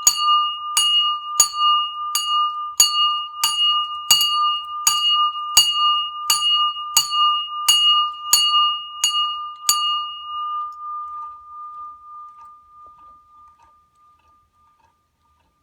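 A single bell struck over and over at a steady pace, about three strikes every two seconds, with the same clear ringing pitch each time. The strikes stop about ten seconds in and the bell's tone rings on, dying away over the next few seconds.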